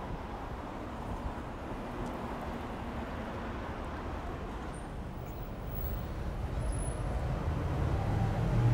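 Street traffic noise: a steady wash of passing vehicles, with a low engine hum growing louder near the end.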